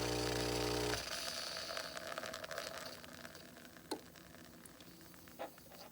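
CASABREWS 20-bar espresso machine's pump humming steadily, then cutting off abruptly about a second in as the brew shot ends. A faint fading hiss follows, with a couple of light clicks.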